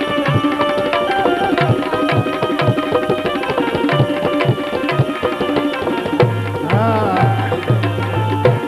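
Instrumental interlude of a live Gujarati bhajan. Tabla play a steady rhythm under held melody notes, and deep bass drum strokes come in about six seconds in.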